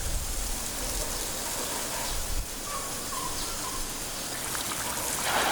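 Steady hiss of water, with no single event standing out.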